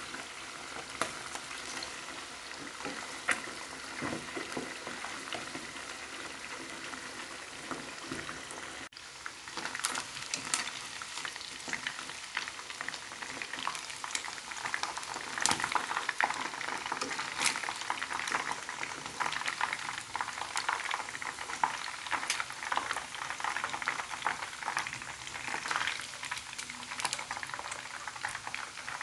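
Chicken pieces deep-frying in hot oil, a steady sizzle that grows louder and crackles more sharply about nine seconds in.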